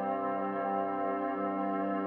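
Background music: sustained, steady organ-like keyboard chords.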